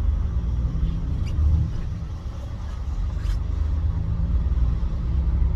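Steady low rumble and drone of a moving road vehicle, with a few faint clicks.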